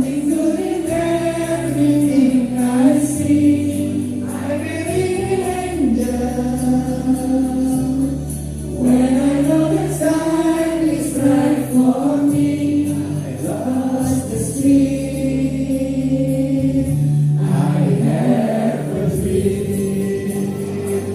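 Music of a choir singing over instrumental accompaniment, with held bass notes that change every few seconds under the sung melody.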